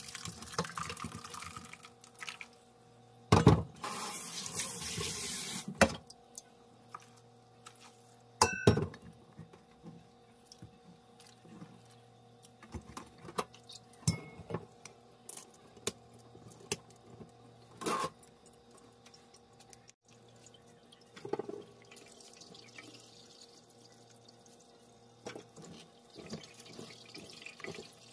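Soaked barley-malt water poured from a stainless-steel bowl through a mesh sieve into a steel sink, splashing for a few seconds, with a few sharp metal knocks of bowl against sieve, one of them ringing. Then scattered drips, and soft wet sounds near the end as the malt mash is squeezed by hand in the sieve.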